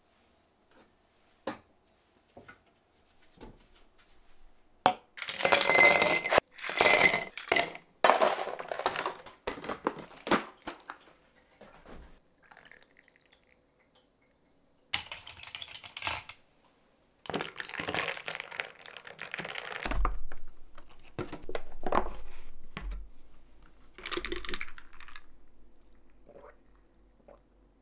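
Dishes and cutlery clinking and scraping in several bursts, with single sharp clicks in between.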